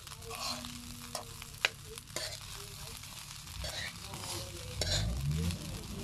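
Metal spoon stirring and scraping egg fried rice in a large aluminium pan, the rice sizzling, with four sharp clinks of the spoon against the pan about half a second apart. A low rising hum comes in near the end and then holds steady.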